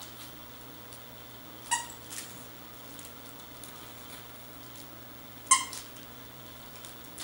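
Sealyham terrier and Scottish terrier playing tug-of-war with a plush toy: two short, high squeals, one about two seconds in and a louder one about five and a half seconds in, over soft scuffling.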